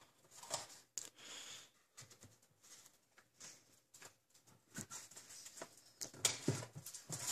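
Soft, scattered rustling, scraping and light clicking from hands working the box insert and lifting out an electronic speed controller with its wires. The handling gets busier and louder near the end.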